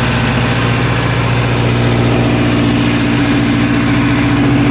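Turbocharged 1776 cc air-cooled VW flat-four in a 1966 Beetle, idling steadily.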